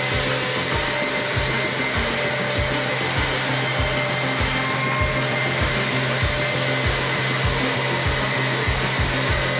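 Electric-motor-driven saw chain on a long (about 1.5 m) Stihl bar cutting down through a stacked pack of boards: a steady motor hum under continuous chain-cutting noise, with low regular knocks about three times a second.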